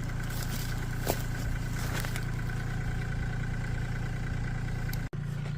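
Kioti compact tractor's diesel engine running steadily under a grapple load. A few faint clicks come through, and the sound cuts off abruptly near the end.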